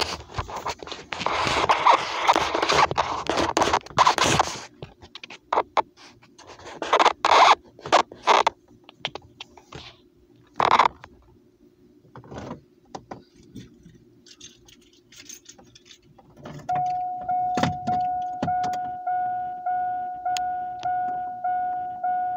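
Rustling, handling clicks and jangling keys, then, from about three-quarters of the way through, a vehicle's warning chime repeating about one and a half times a second, the chime heard with the key in the ignition before the engine is started.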